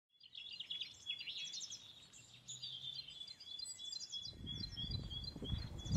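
Birds chirping and singing, repeated short high chirps and trills, with a low rumble coming in about four seconds in.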